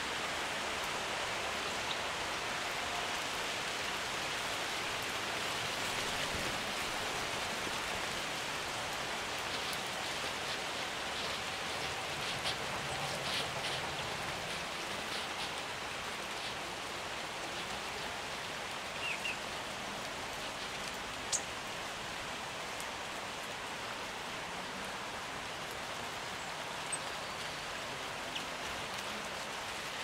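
A steady rushing hiss under a few faint clicks and a quick double high chirp from small birds feeding at a bird table of sunflower seeds.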